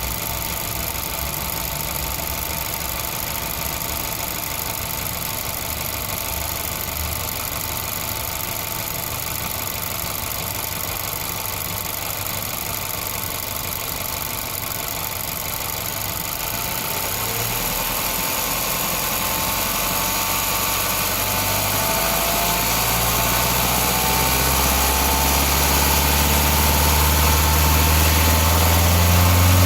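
Volkswagen Golf 6's 1.2 TSI turbocharged four-cylinder petrol engine idling steadily, then from a little past halfway its revs climb slowly and it grows louder to the end. The owner is asking about a strange noise from this engine.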